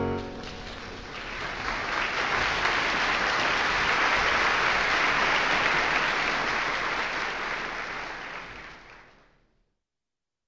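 An audience applauding, swelling up about a second in and fading away near the end.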